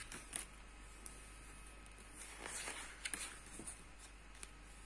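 Faint rustling of a paperback picture book's paper pages being turned and handled, in a few short soft rustles, the clearest about two and a half seconds in.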